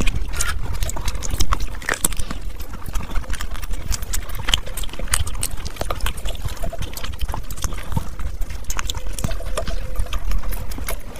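Close-miked eating sounds: chewing and wet lip-smacking, a dense run of irregular mouth clicks and smacks as pizza and chicken are bitten and chewed.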